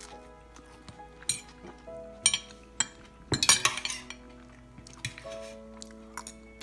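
Metal fork and knife clinking and scraping against a dinner plate, in scattered sharp clicks with the longest, loudest scrape about halfway through. Soft background music with held notes plays underneath.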